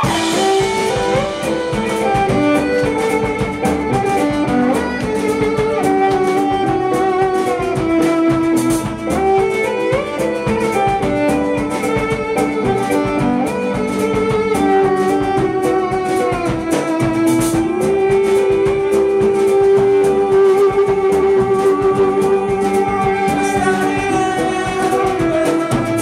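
Violin played with the bow in an instrumental passage: held and sliding notes with several pitches sounding together, at a steady level.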